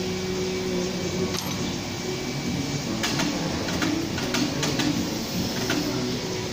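Steady workshop hum with a cluster of light metallic clicks and taps about three to five seconds in, from metal parts being handled on a crusher's crushing chamber.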